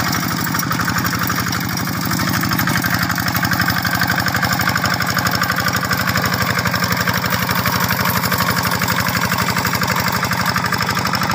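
Quick G600 hand tractor's single-cylinder diesel engine chugging with a steady, rapid, even beat as it pulls a plough through paddy mud.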